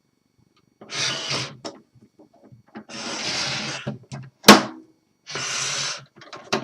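Typewriter carrying case being handled and moved about: three spells of scraping and rubbing against a surface, with one sharp, loud knock about halfway through.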